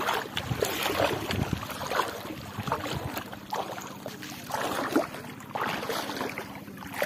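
Shallow water sloshing and lapping in uneven surges around people wading at the water's edge, with some wind on the microphone.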